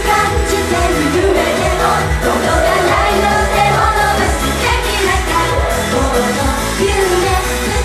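Japanese idol pop song performed live: a woman singing over backing music with a steady beat.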